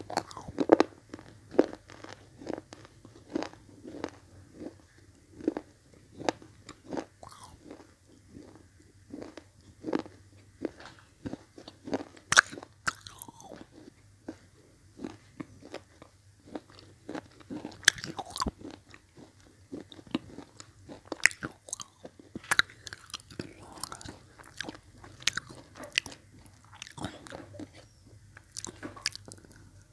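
Close-up crunching and chewing of red slate-pencil blocks, miked by an earphone microphone held at the mouth: an irregular run of sharp, dry crunches, a few much louder than the rest.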